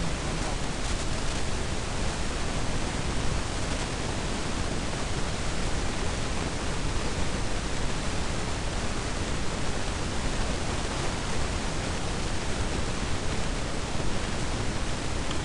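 Steady, even hiss with nothing else standing out: the constant background noise of the lecture recording.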